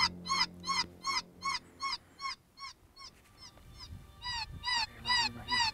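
Predator call sounding distressed canine yelps: a rapid, very regular series of short high yips, about three a second. They fade almost away partway through and come back louder near the end.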